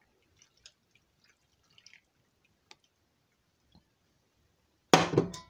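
Cooked penne sliding out of a stainless steel pot and dropping onto a glass dish of sauce: faint, scattered soft wet plops and ticks, then a loud sudden sound about five seconds in.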